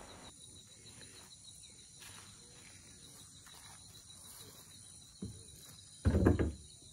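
Faint steady insect chirring, crickets or similar. A single click a little after five seconds and a short louder burst of sound near the end.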